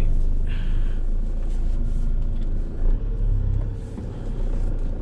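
A 3.5-tonne delivery van driving on the road: a steady low rumble of engine and tyres.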